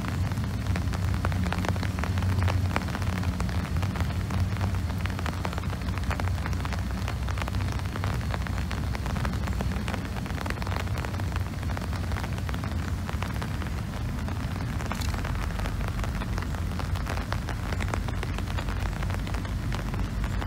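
Freight train cars rolling past in the rain: a steady rumble with a low hum and a dense run of small clicks and clatter from wheels on the rails, mixed with the patter of rain. The low hum is strongest over the first several seconds and then eases.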